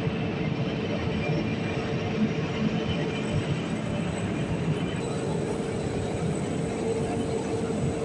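Steady machine hum of electric water pumps running, with a constant mid-pitched tone over an even rumble.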